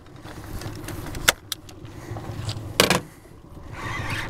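Gear being handled in a fishing boat while a fish is fought on rod and reel: a sharp click about a second in and a louder knock near three seconds, over a low steady rumble.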